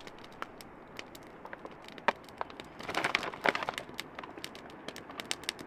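Plastic bag of shredded mozzarella crinkling as the cheese is shaken out of it by hand, with a busier run of crinkles about three seconds in.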